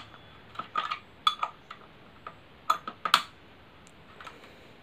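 Sharp metallic clicks and clinks from a Stanley SC16 circular saw's arbor nut, blade and guard as the nut is worked with the spindle lock held, trying to loosen it. The clicks come in three short clusters.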